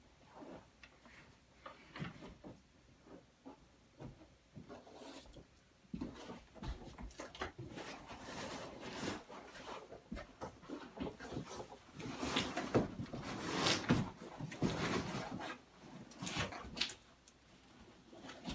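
Large cardboard TV box being handled and opened: scattered knocks and clicks at first, then a longer spell of cardboard scraping and rubbing with more knocks, loudest a little past the middle.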